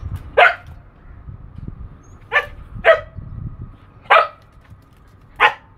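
A husky barking: five short, loud barks, irregularly spaced a second or so apart.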